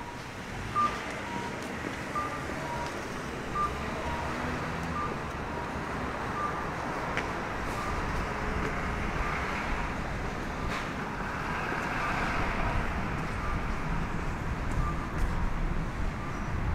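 Short electronic beeps repeating steadily on two alternating pitches, over the low rumble of street traffic that swells about two-thirds of the way through as a vehicle passes.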